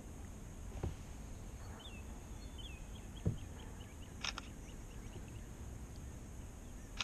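Calm lake ambience with birds chirping: a quick run of small notes in the middle and a sharper call about four seconds in and again at the end. Under it run a steady high insect hum and a low rumble, with two dull knocks, one about a second in and one past three seconds.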